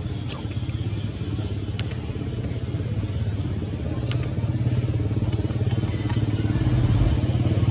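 An engine running steadily with a fast, even pulse, getting a little louder in the second half, with a few faint clicks over it.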